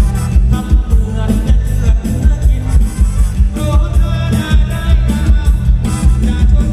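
Loud live mor lam band music with a heavy bass and drum beat, and a voice singing over it at times.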